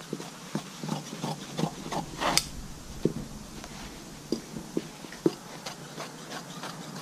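Scissors snipping through headliner fabric in short, irregular cuts, the blades clicking shut one or two times a second, with the fabric rustling as it is handled; a longer rasping swish a little over two seconds in.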